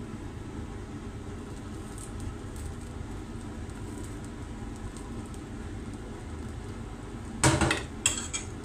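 Steady low rumble in the background, then near the end a pot is set down on a glass cooktop: a knock followed by a short metallic clink.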